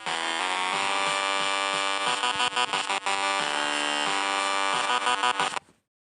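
A loud, buzzy electronic sound made of many steady tones together, changing in short steps, that cuts off suddenly near the end.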